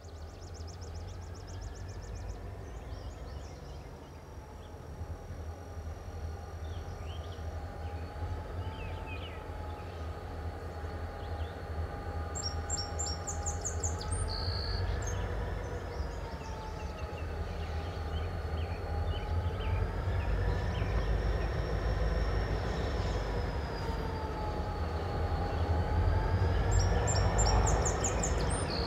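Two GP35-3 diesel-electric locomotives running light and approaching slowly: a low engine rumble that grows steadily louder, with a faint wavering whine over it. Short bird chirps come about halfway through and again near the end.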